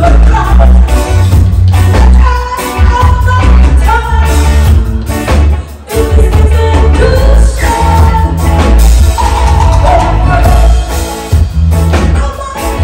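Live rock band playing loud, with a woman singing lead over electric guitars, keyboard and drum kit. The band drops out briefly about six seconds in, then comes back.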